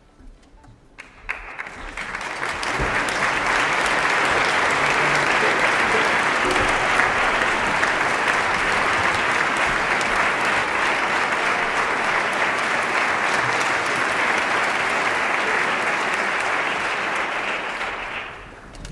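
Concert audience applauding. The clapping swells in over the first two or three seconds, holds steady, and dies away near the end.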